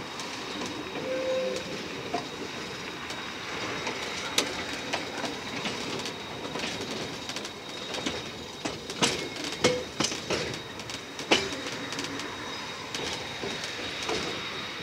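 Train wheels rolling slowly over rail joints and points: a steady rumble broken by sharp clicks and clanks, busiest around nine to eleven seconds in, with a couple of brief wheel squeals.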